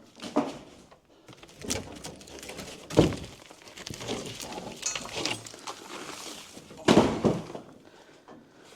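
Irregular thuds and cracking of demolition work, with a handful of sharp knocks; the heaviest come about three seconds in and again near seven seconds.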